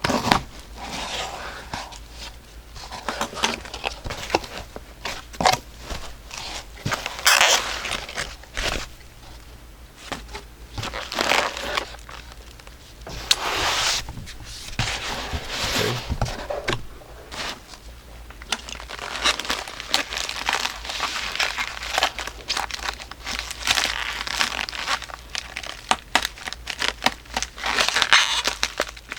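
Packaging being pulled apart by hand as a shipping box is unpacked: irregular crinkling and crumpling of packing material, with tearing and sharp little clicks and snaps.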